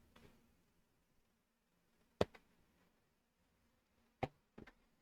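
Plastic Lego pieces being handled in a quiet room: a sharp click a little over two seconds in, another about two seconds later, then two small ticks near the end.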